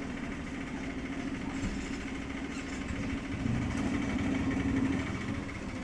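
A steady mechanical drone like an idling engine, louder for a second or two a little past halfway, with a few faint clicks over it.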